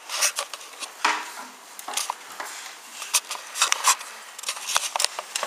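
Handling noise from the recording device: irregular rubbing, scraping and clicking as it is moved about with something pressed over its lens and microphone.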